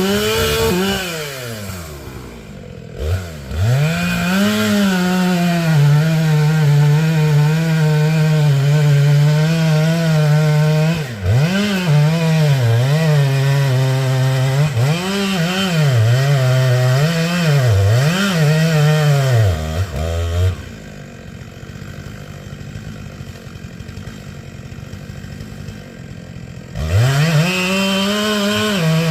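Chainsaw engine running at high revs, held steady for several seconds, then revved up and down about five times. It drops to a much quieter low sound about two-thirds of the way in and revs up again near the end.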